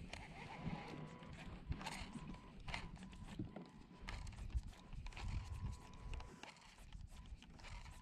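Small waves lapping and slapping against a fishing kayak's hull in irregular light knocks, over a low wind rumble on the microphone.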